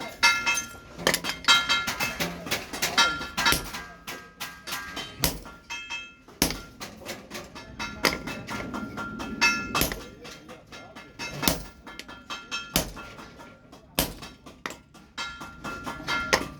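Hammer blows on steel over an anvil, forging an axe head: quick, irregular strikes, many leaving a short metallic ring, with a few heavier single blows in the second half.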